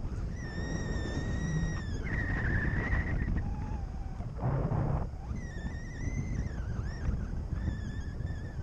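Wind rushing over the microphone in flight on a paraglider, a steady low rumble. Over it a thin, high whistle-like tone comes and goes about four times, wavering in pitch, with a brief lower tone near the middle.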